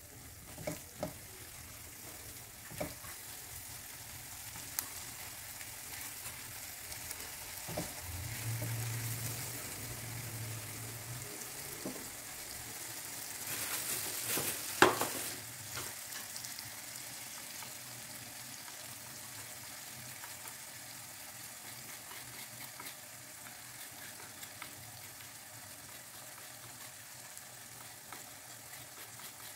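Ground red chili paste sizzling steadily as it fries in a frying pan, with a few taps of a wooden spatula in the first seconds. There is one sharp knock about halfway through.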